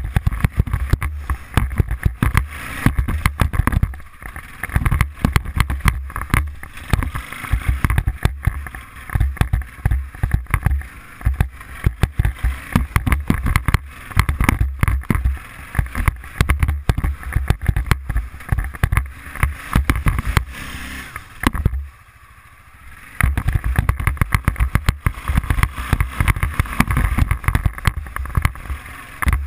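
Arctic Cat 500 ATV's single-cylinder four-stroke engine running under throttle as the quad is ridden, its level rising and falling, with wind buffeting the body-mounted action camera's microphone. The sound drops away briefly about three quarters of the way through.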